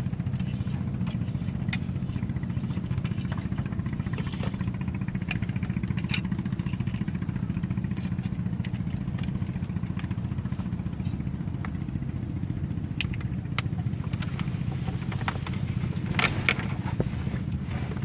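Small boat engine running steadily at constant speed, with scattered light clicks and knocks over it, a few stronger ones near the end.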